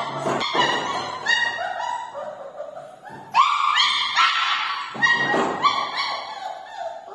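Labrador puppies crying for food: a run of repeated high-pitched yelps and whines, one after another with short breaks.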